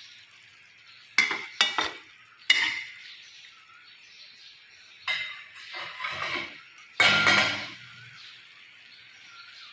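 A spatula knocking and scraping against a wok while stirring a thick tomato and fish sauce: three sharp knocks about a second in, then scraping strokes from about five seconds in, the loudest around seven seconds.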